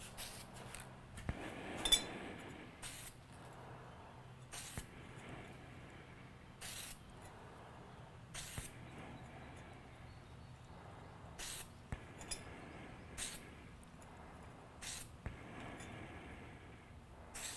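Aerosol can of Durabake spray paint hissing in short bursts, one every second or two, as paint is sprayed onto a suppressor tube.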